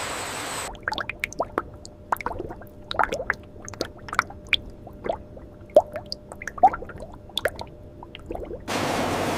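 Liquid dripping and plopping irregularly, several small drops a second. A steady hiss cuts off under a second in and comes back suddenly near the end.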